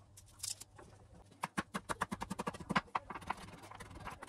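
Kitchen knife chopping fresh coriander on a wooden cutting board: a rapid run of sharp taps starting about a second and a half in, then a few slower taps.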